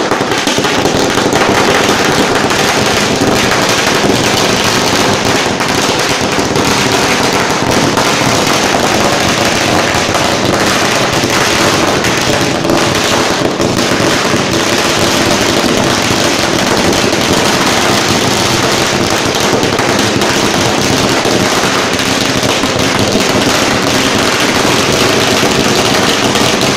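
A long string of firecrackers going off in rapid, unbroken cracking bangs that run on without a pause.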